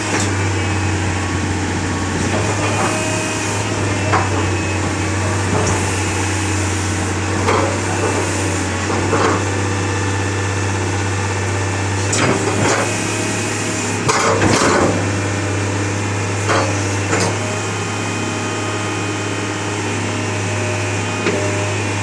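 Hitachi UH055-7 hydraulic excavator's diesel engine running at a steady low hum, with scattered knocks and clanks every few seconds.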